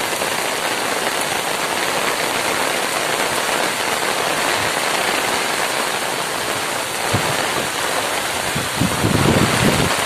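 Heavy downpour: a steady, loud hiss of rain falling on trees and ground. A louder, deeper rush comes in near the end.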